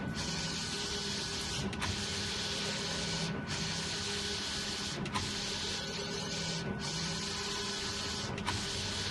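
Digital flatbed printer at work, its print-head carriage sweeping back and forth across the bed with a steady mechanical whir and hiss. The hiss dips briefly about every second and a half to two seconds.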